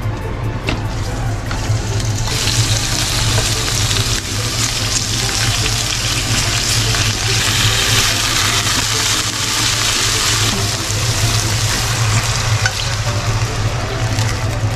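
Food sizzling in hot oil in a frying pan. The sizzle jumps up about two seconds in and eases off around ten seconds in.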